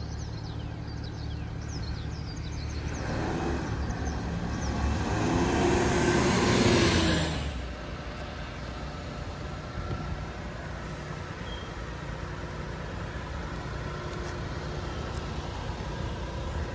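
1996 Mitsubishi Minicab kei truck's small three-cylinder engine as the truck drives up close, growing louder until about seven seconds in, then dropping back to a steady idle.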